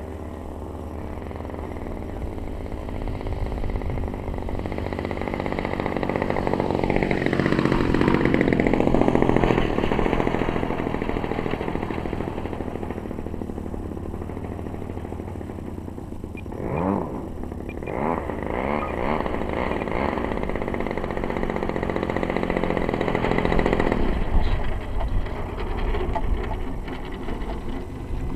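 Desert Aircraft DA-35 twin-cylinder two-stroke gas engine of a 73-inch Laser 230z RC aerobatic plane in flight, its pitch rising and falling with throttle changes and passes. It is loudest about nine seconds in, with quick pitch sweeps around seventeen seconds in.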